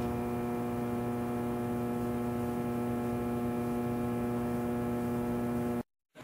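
Steady electrical hum with many even overtones, standing in for a lost video feed; it cuts off suddenly near the end.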